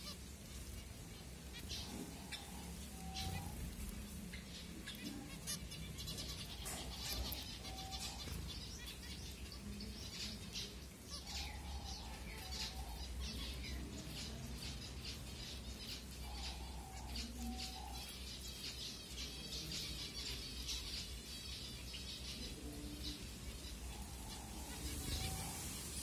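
A flock of zebra finches chirping: many short, high calls, thickest through the middle.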